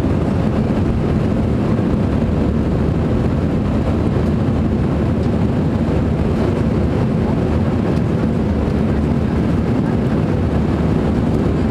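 Steady engine and airflow noise inside the cabin of a jet airliner climbing out after takeoff, a loud, even low rumble.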